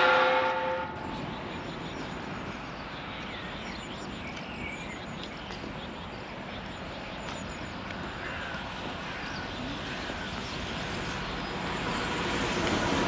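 An approaching train, its steady rumble growing louder toward the end, with birds chirping over it. The tail of a loud horn blast dies away in the first second.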